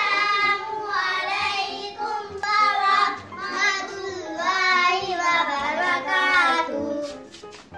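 A high voice singing a melody, with sliding, wavering notes, breaking off about seven seconds in.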